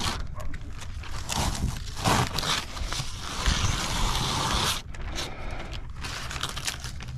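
Clear plastic protective film being peeled off a new oil tank: irregular crinkling, ripping pulls of varying length.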